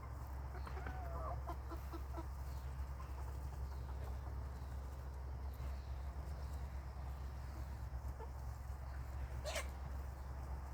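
Chickens in a coop clucking quietly now and then, with one louder call near the end, over a steady low rumble.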